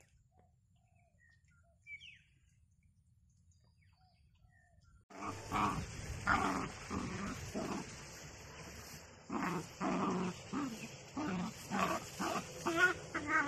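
Near quiet with one faint bird chirp about two seconds in, then, from about five seconds in, miniature dachshunds growling in repeated bursts as they play-fight.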